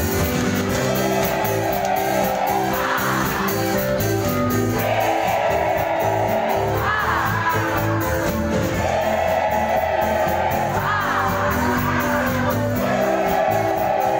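Congregation singing a worship song together with loud backing music and a steady beat, with a few shouts from the crowd. The sung lines come as long held phrases, about one every four seconds.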